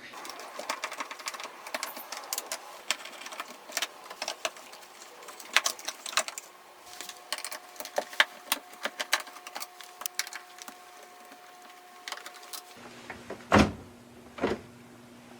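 Hand work on a front-loading washing machine being taken apart: a long run of small clicks and clatter of its parts, then two heavier knocks about a second apart near the end.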